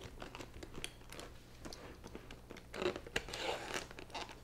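Utility knife cutting through a stiff plastic blister pack, with faint crinkling and small ticks from the plastic and a louder burst of crackling about three seconds in.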